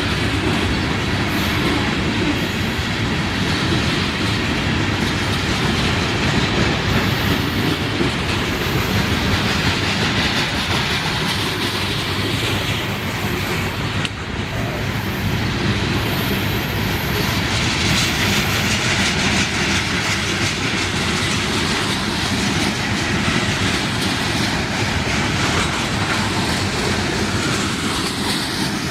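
Freight train cars rolling past, with steel wheels clacking over the rail joints and some wheel squeal.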